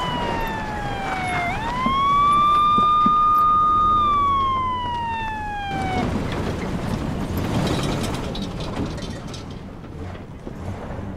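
Police car siren wailing in slow sweeps, falling, rising, holding, then falling again before it cuts off suddenly about six seconds in. After that, a pickup truck drives over loose sand and dirt with a rough, noisy rumble.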